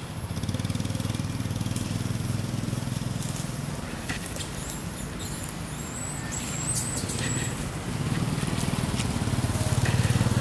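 A motor engine running steadily with a low, evenly pulsing rumble that gets louder near the end, with a few sharp clicks over it.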